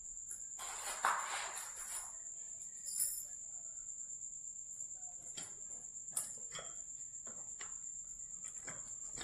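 A steady, high-pitched cricket-like trill, with a brief scraping rustle about a second in, a knock a couple of seconds later and a few faint clicks.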